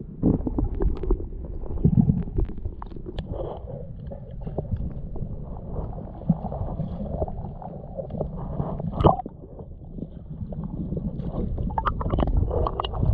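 Muffled water noise picked up by a submerged camera: a low rumble and gurgling, with scattered clicks and knocks, the sharpest about nine seconds in.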